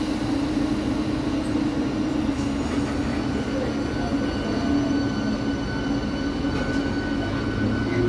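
Eastern Railway electric multiple-unit (EMU) local train rolling slowly past along the platform: a continuous rumble of coaches and wheels on the track, with a constant humming tone over it.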